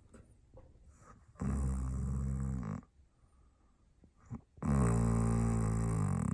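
A man snoring loudly: two long buzzing snores, each about a second and a half, a couple of seconds apart, with a rasping, engine-like sound likened to a moped.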